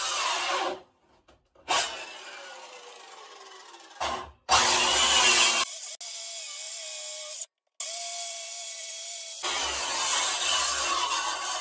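Corded power saw cutting hatch openings in 3/4-inch pressure-treated plywood, in several runs. Between the loud cutting stretches the motor runs at a steady pitch, and the sound cuts off suddenly a few times.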